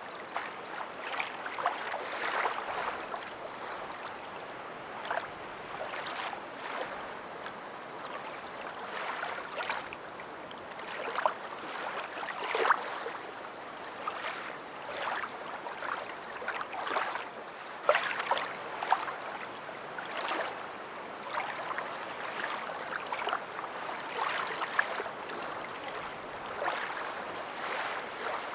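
Water splashing and lapping in short, irregular splashes over a steady wash.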